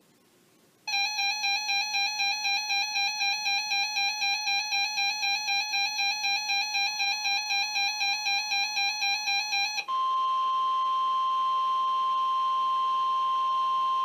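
NOAA weather radio receiver going into alert: a loud pulsing electronic beep, about three or four a second, for about nine seconds, then the steady 1050 Hz NWS Weather Alert Tone that announces a new warning broadcast.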